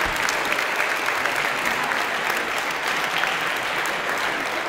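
Spectators applauding steadily.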